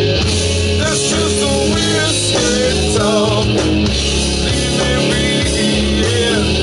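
Rock band playing live through a PA: electric guitar, bass and drums, with a singer's voice over them.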